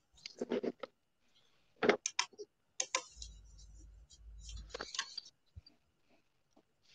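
Faint, scattered clicks and taps, with a brief low rumble about three seconds in.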